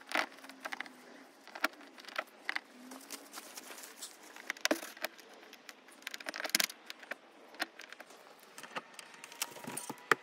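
Car keys jangling and clicking against a Toyota Starlet's door lock as a key is tried in it, in irregular sharp clicks and small rattles. The lock is frozen and won't open.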